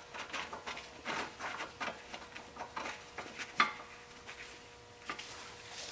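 Light metal clicks, taps and scraping as a bolt is worked through a tension control rod's bushing and mounting bracket, with one sharper click a little past halfway.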